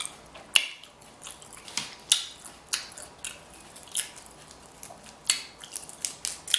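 Close-miked mukbang eating of a seafood boil: a string of sharp, irregular cracks and crunches, one or two a second, from biting and chewing.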